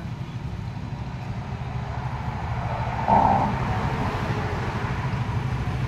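An engine idles with a steady low rumble while transmission oil pours through a metal funnel. A brief louder noise comes just after three seconds in.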